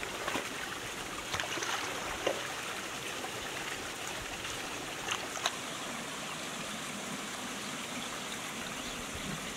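Irrigation water flowing steadily along an earthen channel and into flooded garden beds, with a few faint short knocks.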